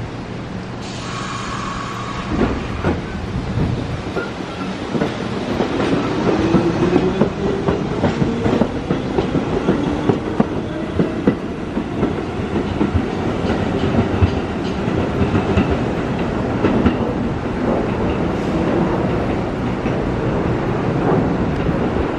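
An R62A subway train on the 1 line pulling out of the station and picking up speed. Its wheels clack over the rail joints, and the motor whine rises as it accelerates.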